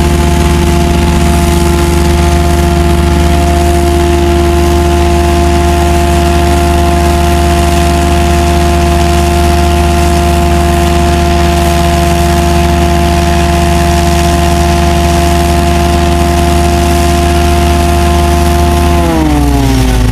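Combination sewer jetting and vacuum truck running its engine and pumps together for jetting and vacuuming at once: a loud, steady drone with a whine. Near the end the pitch of the whole machine falls as it slows.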